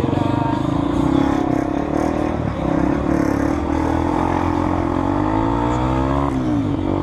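Motorcycle engine running at highway speed, heard from on board. Its pitch climbs as it accelerates, then drops sharply about six seconds in and holds steady.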